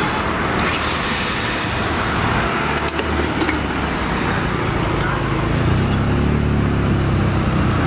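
Road traffic running steadily, with a vehicle engine growing louder close by in the second half.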